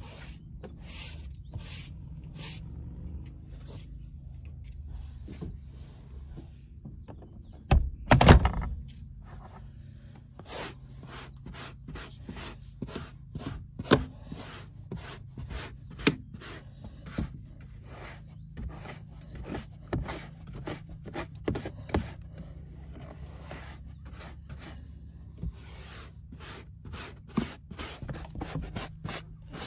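Small hand brush scrubbing van floor carpet and a plastic seat rail in a quick series of short scraping strokes, over a steady low hum. One loud knock comes about eight seconds in.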